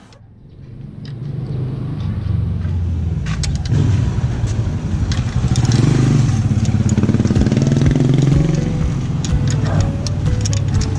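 A vehicle engine running, building up over the first two seconds and then holding, with a slow rise and fall in pitch near the middle. Scattered light clicks sound throughout.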